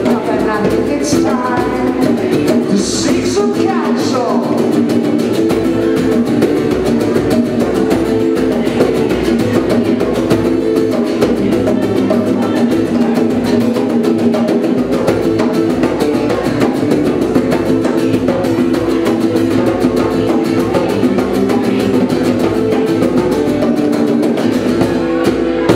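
Live acoustic performance of a song: guitar strumming with bongos keeping the rhythm, and a man singing at times.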